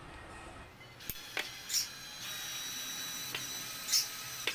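Flipkart SmartBuy 20V cordless drill-driver (YLCD-1820) running as it drives a screw into wood: a steady high motor whine starting just under a second in, with several sharp clicks and squeaks from the screw and bit.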